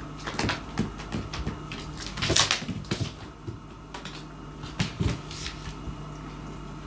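Cat playing with cotton swabs on a wooden floor: scattered light taps and knocks of paws and a batted swab, the strongest a little over two seconds in and about five seconds in.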